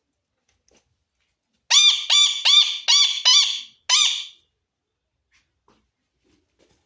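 A pet parrot squawking: six loud, harsh calls in quick succession starting about two seconds in, the last one after a brief pause.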